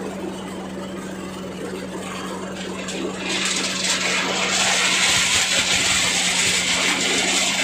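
Areca nut husking machine running on its 8 hp diesel engine, a steady hum. About three seconds in, a louder hiss joins in as nuts are husked and husk fibre pours from the chute.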